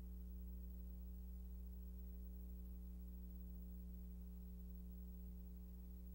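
Steady low electrical hum with a faint hiss from an old film soundtrack; nothing else is heard.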